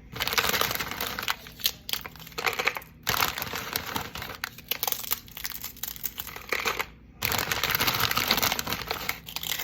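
Sun Chips snack bag crinkling as it is handled, a dense run of crackling with two short breaks.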